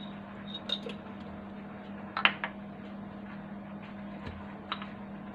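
A few light clicks and a short double knock about two seconds in, over a steady low hum of room tone.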